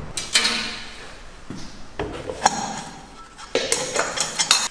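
Metal clanks and pings with a short ring after each as rusty quad front-suspension parts and a wheel rim are handled and worked on: one strike shortly after the start, another midway, then a quick run of clanks near the end.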